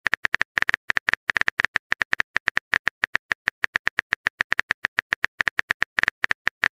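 Rapid, uneven run of short phone-keyboard tap clicks, several a second: a texting app's typing sound effect while a message is being composed.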